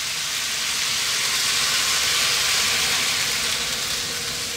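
Water poured into a hot wok of stir-fry, hissing and sizzling as it hits the pan. The hiss swells towards the middle and eases a little near the end.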